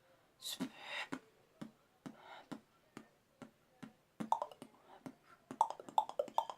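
Beatboxing demonstration of the triple clop: a run of sharp mouth clicks and hollow tongue clops. The clicks are spaced out at first, then come in quick clusters from about four seconds in.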